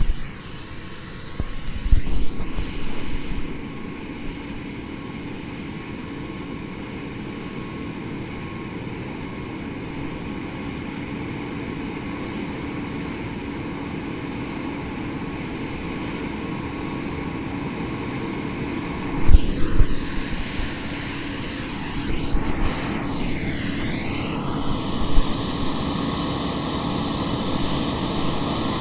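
John Deere six-row cotton picker running in the field while harvesting: a steady engine and fan drone with a high whine that grows slowly louder as the machine approaches. A few short low thumps come about two seconds in and again in the second half.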